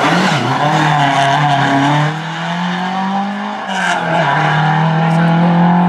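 Classic rally car engine revving hard under acceleration out of a hairpin. Its pitch climbs, drops sharply at an upshift about three and a half seconds in, then climbs again.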